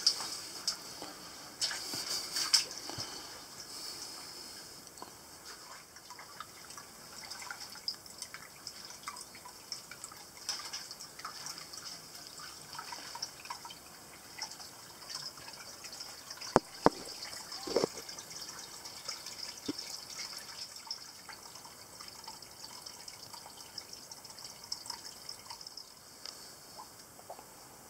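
Water dripping in a timbered mine drainage adit, with scattered small clicks and a few sharp knocks about seventeen seconds in.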